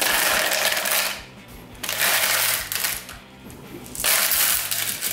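Gravel dropped by the handful into a clear plastic orchid pot, clattering against the plastic and itself in three bursts of about a second each.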